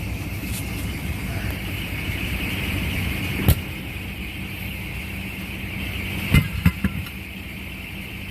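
Steady idling engine hum with a few sharp knocks from tire work: one about three and a half seconds in and three close together near the end.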